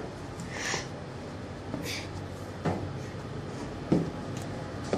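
Scattered knocks and thumps, about a second apart, with brief rustling, from a person clambering up onto a fire truck's diamond-plate metal rear step.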